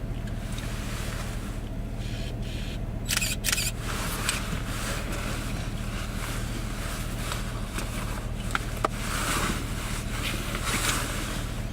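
Steady low hum of a truck idling, heard from inside the cab, with gusts of wind hiss rising and falling and a few brief clicks.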